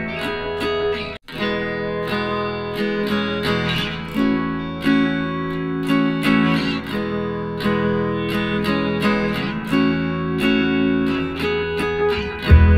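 Background music led by acoustic guitar, plucked and strummed at an even pace, with a momentary break about a second in and a deep low note coming in near the end.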